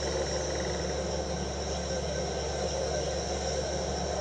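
Steady synthesized sound effect from an electronic keyboard: a constant hiss over a low hum with faint steady tones, unchanging and without breaks.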